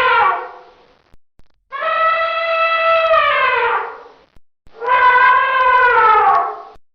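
Elephant trumpeting: the tail of one call fading out in the first second, then two more calls of about two seconds each, each falling in pitch as it ends.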